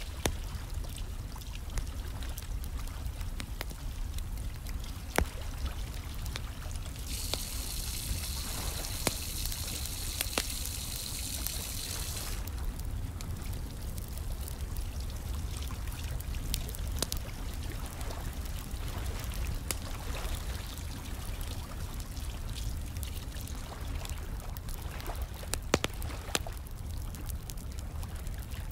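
Wood fire crackling with scattered sharp pops over a steady low rumble, mixed with running, trickling water. About seven seconds in, a bright hiss comes in and cuts off sharply some five seconds later.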